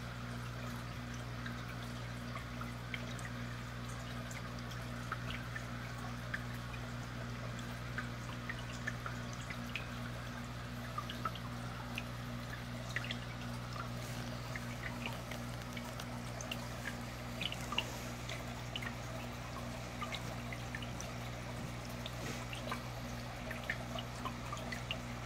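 Aquarium bubbling: streams of air bubbles rising and breaking at the water surface with many small plinks and drips, over a steady low hum from the tank's pump.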